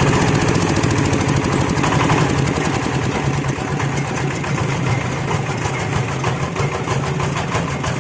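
8 HP diesel engine driving a livestock-manure grinding machine, running steadily with a fast, even beat; it grows slightly quieter a few seconds in.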